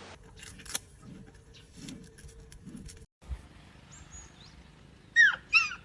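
Two short, high, falling calls from a small animal, the loudest sounds here, a little after five seconds in, with a few faint chirps before them; earlier there are scattered light clicks and handling knocks.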